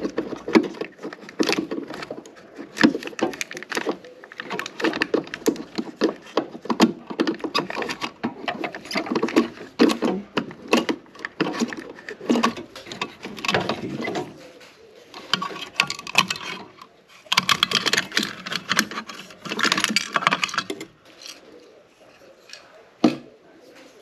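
Rapid clicking, tapping and rattling of a screwdriver and hands working on a refrigerator compressor's start capacitor, relay terminals and wiring. The clatter is busy for most of the first half, pauses, and comes in a second busy stretch about three quarters through.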